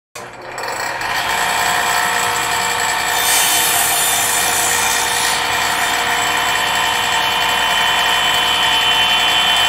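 Craftsman cordless circular saw running and cutting through a cardboard box: a steady motor whine that spins up over the first second, with a brighter hiss between about three and five seconds in. The sound cuts off suddenly at the end.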